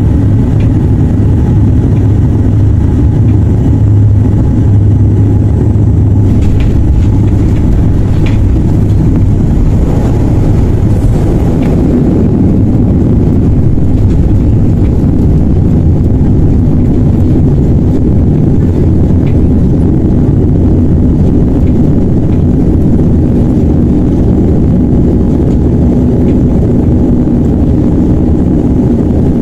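Cabin noise of a Dash 8 turboprop airliner landing and rolling out on a wet runway: the engines and propellers make a loud, steady drone. The low hum fades about ten seconds in, and a higher hum comes in later in the rollout.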